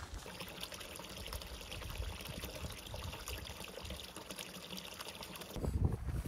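A thin trickle of water falling from a mossy rock into a small pool, splashing steadily. Near the end it cuts off abruptly and gives way to a hiker's footsteps and wind.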